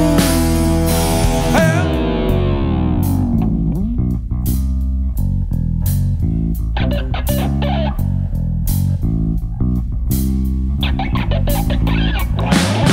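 Instrumental passage of a Christian rock worship song: electric guitar and bass guitar playing over a drum kit, with no singing.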